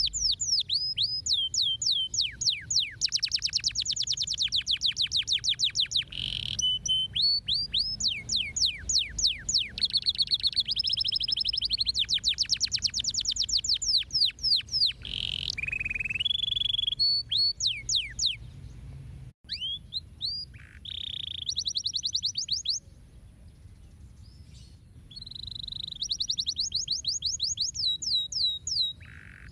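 Domestic canary singing a long, loud song of fast trills and quick downward-sweeping notes between higher held tones. The song breaks off briefly about two-thirds through and goes quieter for a couple of seconds before the trills start again.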